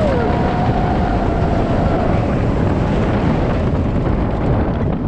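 Roller coaster train running at speed: a steady rush of wind over the ride-mounted camera's microphone, mixed with the rumble of the wheels on the steel track. A rider's held yell trails off in the first two seconds.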